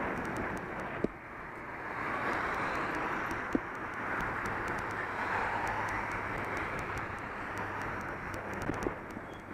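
Road traffic passing alongside while a bicycle rolls over paving slabs and path, with a steady rumble and hiss. There are two sharp knocks, one about a second in and another about two and a half seconds later, typical of the bike jolting over bumps in the paving.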